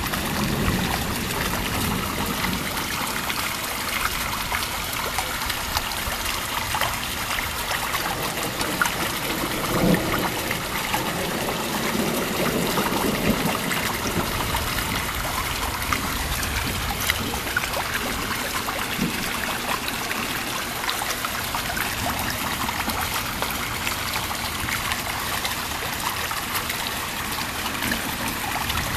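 Steady heavy rain with water trickling and running. A low rumble swells briefly about ten seconds in.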